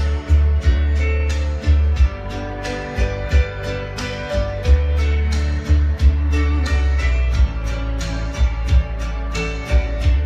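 Background music: a guitar-led piece with strummed strokes about three times a second over a strong, steady bass.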